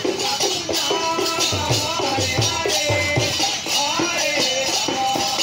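Kirtan group's devotional music: voices singing a melody over steadily jingling hand percussion and a regular low drum beat.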